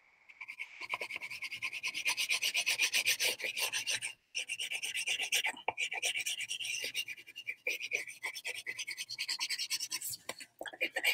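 Blue wax crayon rubbed rapidly back and forth over drawing paper, a dry rasping scratch of many quick strokes a second. It stops for a moment a few times.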